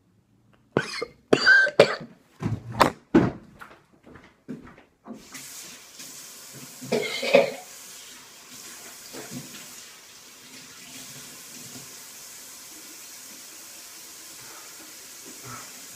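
A man coughing and gagging hard on a spoonful of dry ground cinnamon, a run of harsh coughs in the first few seconds. Then a tap starts running with a steady hiss of water, and one more loud cough or retch comes about seven seconds in.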